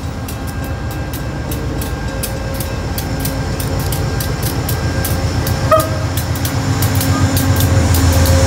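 GE P40DC diesel locomotive hauling a Shore Line East train slowly past, its engine rumbling and growing louder as it comes closer, with many quick clicks from the wheels on the rails. A brief squeal comes a little under six seconds in.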